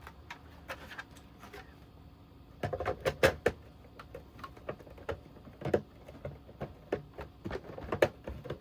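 Oscilloscope back cover being handled and fitted onto the case: scattered knocks and clicks, with a quick cluster of several about three seconds in and single knocks near six and eight seconds in.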